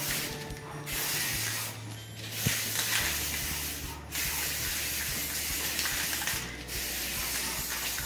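Aerosol spray-paint can hissing in several long bursts, with short pauses as the nozzle is released and pressed again.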